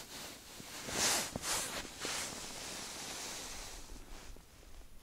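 Rustling of a padded winter jacket and gloves as the hands move: a few short swishes about a second in, then a longer, softer rustle that fades near the end.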